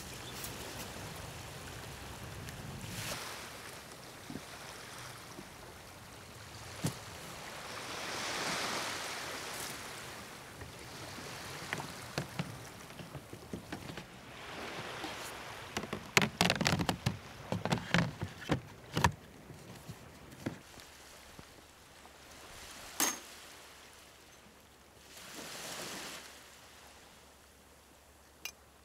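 Camping gear being set up: scattered clicks and knocks of folding furniture and a storage box being handled, thickest in a cluster partway through, over a soft wash of surf that swells and fades twice.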